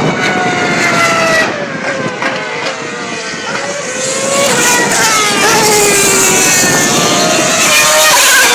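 2012 Formula 1 cars' 2.4-litre V8 engines at high revs, more than one car heard at once, their notes stepping down through downshifts and climbing again through the bends. The loudest car passes near the end.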